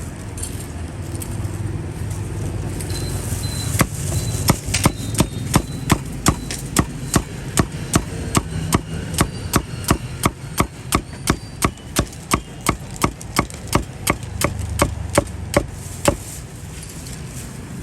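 A cleaver chopping barbecued meat on a wooden chopping block, a long run of quick, even strikes at about three a second that starts a few seconds in and stops shortly before the end. Traffic hum runs underneath.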